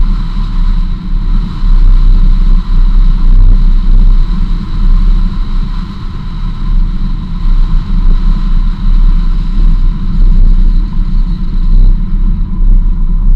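Jeep driving along a dirt road, heard from outside on its hood: a loud, steady low rumble of engine and tyres on dirt, with wind buffeting the microphone so the loudness gusts up and down.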